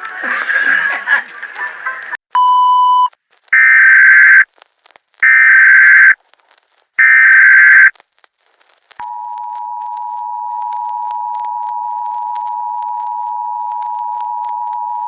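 Emergency Alert System tones: after a short beep about two seconds in come three loud, screechy one-second bursts of SAME header data. About nine seconds in, the steady two-tone EAS attention signal starts and holds.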